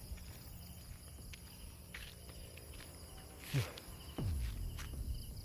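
Night insects, crickets among them, chirping in a steady pulsing trill, with a few soft footsteps and one louder brushing thump about three and a half seconds in.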